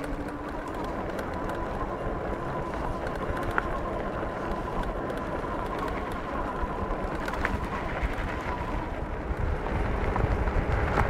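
Rattan LM750 fat-tire e-bike ridden up a bumpy road under motor power: a steady rumble of wind and tyres, with a thin steady whine from the hub motor that fades out near the end, and a few single rattling clicks over the bumps.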